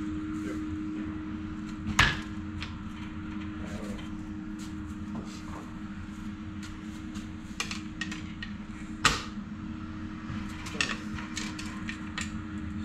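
Hand-tool work on a coil-over shock and its spring: scattered knocks and clicks, two sharper knocks about two and nine seconds in, over a steady low hum.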